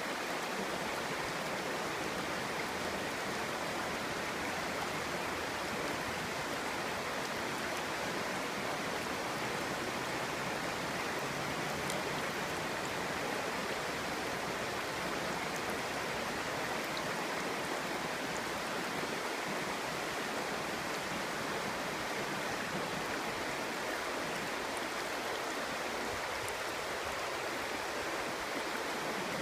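Clear shallow stream babbling and rushing steadily over stones.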